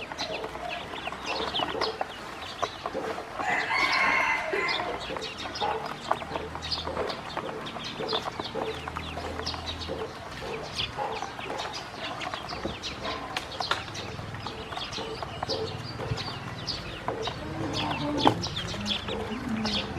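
A flock of ducklings peeping continuously in quick, high chirps, with a louder, lower call about four seconds in.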